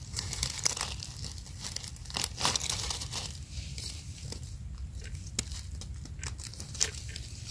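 Dry leaf litter crackling and rustling under a hand as a red russula mushroom is lifted out, with irregular small snaps and scrapes as a knife trims the base of its stem.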